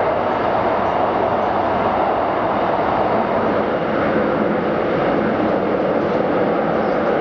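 Shanghai Metro Line 2 train running between stations, heard from inside the carriage: a loud, steady running noise of wheels on rail and the train's drive, with no change in pace.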